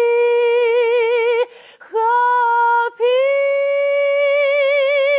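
A man sings unaccompanied in a high, clear voice, holding long notes with strong vibrato into a handheld microphone. There is a brief breath about a second and a half in, and the last note is a little higher and held longest.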